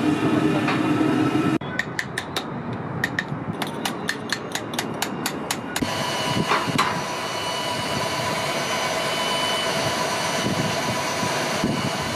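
Hammer strikes on a stonemason's chisel against stone, sharp and ringing, about three or four a second for a few seconds. They are followed by a steady mechanical hum from site machinery.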